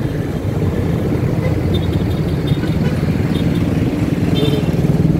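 Motorcycle engine running steadily while riding slowly, mixed with the steady hum of surrounding motorcycle and car traffic.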